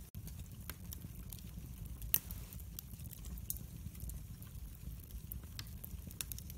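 Split wood logs burning in a fireplace, crackling with scattered small snaps and one louder pop about two seconds in, over a low steady rumble.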